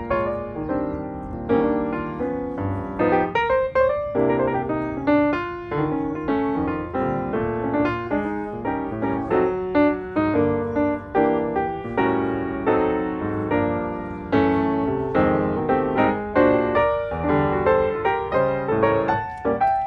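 Background piano music, a run of many notes with no pause.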